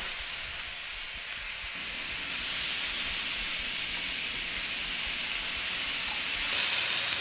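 Thin steaks and chicken cutlets sizzling on a hot stovetop grill pan, a steady hiss. The sizzle gets louder about six and a half seconds in as another steak goes down on the pan.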